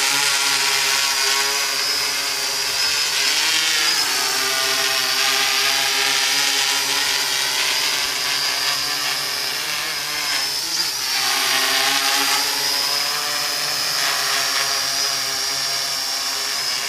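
MikroKopter quadrocopter hovering: its four electric motors and propellers whine steadily with several tones at once. The pitch sags and climbs back twice, briefly about four seconds in and more deeply about ten seconds in, as the motors adjust their speed.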